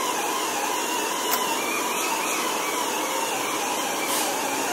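Electric car polisher running steadily, its motor whine wavering slightly in pitch as it works polishing compound over a painted body panel.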